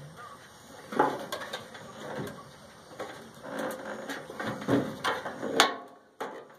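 Irregular knocks, clicks and scrapes of metal parts being handled and pried loose while a microwave oven is taken apart, with a sharp clack about five and a half seconds in.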